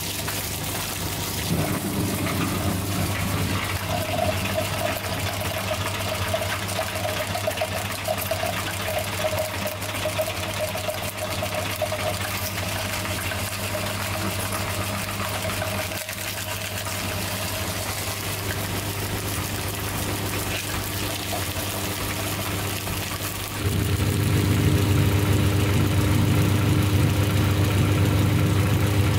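Cast-iron meat grinder running with a steady mechanical hum while it crushes Orbeez water beads. About 23 seconds in the hum gets clearly louder.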